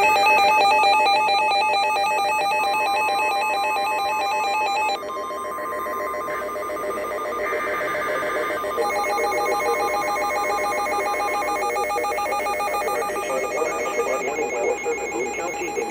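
Electronic emergency-alert tones. For about five seconds a loud, rapidly warbling ring-like tone pattern sounds, then it drops to quieter steady tones that change pattern about nine seconds in and again near the end.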